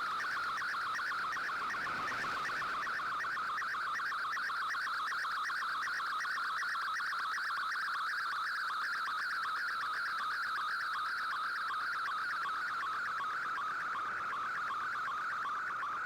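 Digital-mode data signal of the Shortwave Radiogram broadcast, received off the air on shortwave: a continuous warbling stream of rapidly hopping tones around one to two kilohertz, over faint band noise.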